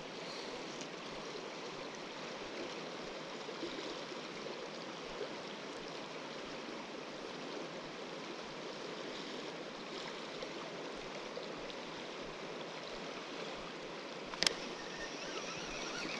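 Steady rushing of a river running high and fast. A single sharp click about fourteen seconds in.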